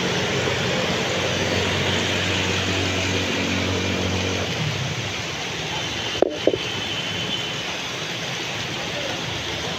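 Heavy stormy rain, a steady hiss, with a low hum under it that fades out about halfway through. Two sharp clicks come close together about six seconds in.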